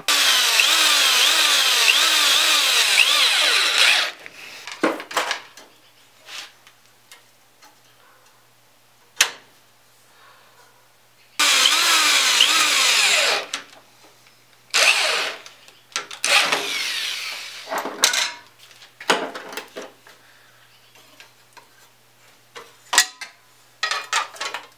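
Power drill driving screws to fix a CNC frame's rail, its motor pitch wavering up and down as the trigger is worked and the screw loads. One run of about four seconds at the start, another of about two seconds near the middle, then a few short spurts, with light metal clicks and handling between.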